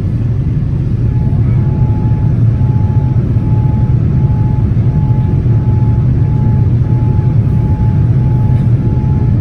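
Boeing 787-10 cabin noise in the climb: a steady, loud rumble of the engines and airflow. A faint short tone repeats about twice a second from about a second in.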